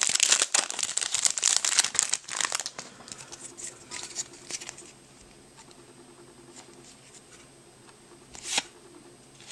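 Foil Yu-Gi-Oh! booster pack being torn open and crinkled by hand: a dense crackling rustle for about the first two and a half seconds. Then softer rustles and clicks follow as the cards are pulled out and handled, with one short rustle near the end.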